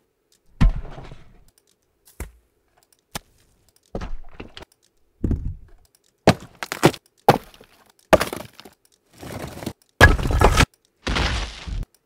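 Recorded rock impact sound effects auditioned one after another: rocks and a cinder block dropping onto dirt and rock piles, cracking and crashing. Some are cut off abruptly as the next starts, and the last few are long, heavy crashes.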